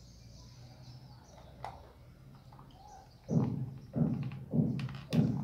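A dog barking four times in quick succession, about 0.6 s apart, in the second half.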